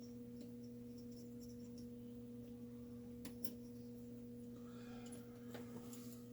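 Steady electrical hum with a few faint clicks, two about three seconds in, and light rustling near the end.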